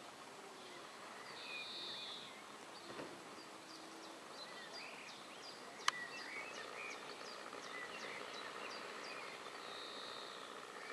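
Background environmental noise with small birds chirping: a fast run of short, high chirps from about four seconds in to near the end. One sharp click about six seconds in is the loudest sound.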